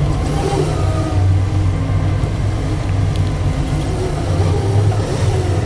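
Doosan 4.5-ton forklift's engine running steadily, heard from inside the cab with a low, even hum.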